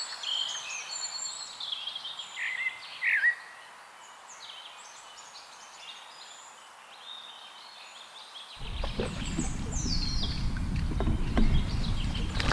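Small birds chirping and calling, loudest with a short descending call about two to three seconds in. About eight and a half seconds in, a low, uneven rumble of wind buffeting the microphone starts suddenly, with a few faint clicks.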